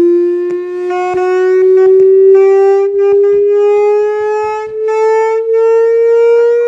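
A single loud electronic test tone from a loudspeaker, with a buzzy edge from its overtones, gliding slowly and steadily upward in pitch. It is a frequency sweep used to set water vibrating while searching for its resonant frequency.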